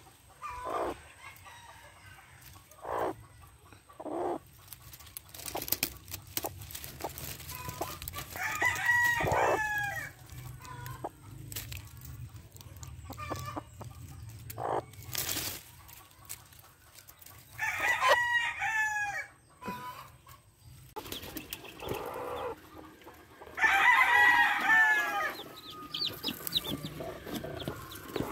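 Chickens clucking in short scattered sounds, with three longer calls that fall in pitch about nine, eighteen and twenty-four seconds in.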